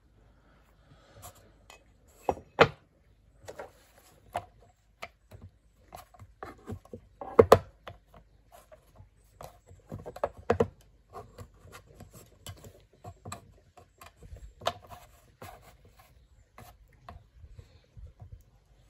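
Irregular clicks and knocks of a Leatherman PST multitool being handled, with the loudest knocks about two and a half seconds in, around seven and a half seconds in, and again near ten and a half seconds.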